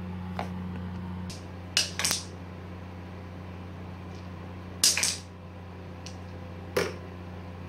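A cat moving about on a bathroom counter and into a porcelain sink: a handful of short, sharp knocks and scrapes against hard surfaces, a second or two apart, over a steady low hum.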